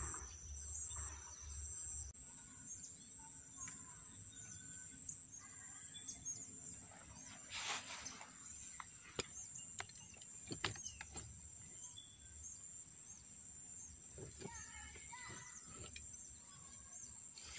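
Outdoor pond ambience: a steady high-pitched insect chorus with scattered bird chirps, a few clicks, and a brief rush of noise about eight seconds in.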